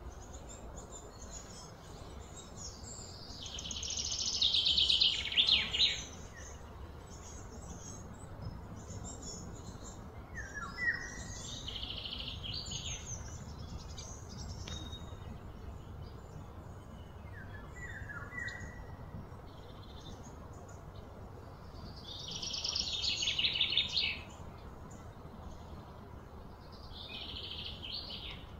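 Wild birds calling: short falling chirps every several seconds, and twice a louder buzzy trill that swells over about two seconds and then stops, over a low steady rumble.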